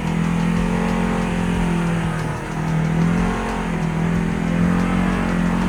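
ATV engine running at a steady throttle over a rocky trail, its pitch dipping briefly about two seconds in, then picking back up.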